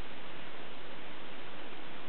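Steady, even hiss with no distinct sounds in it: background recording noise.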